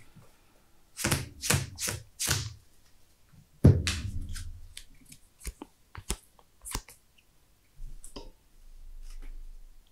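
Sleeved trading cards being handled on a rubber playmat: four quick swishes of cards sliding, a thud about a third of the way in, then a few light clicks.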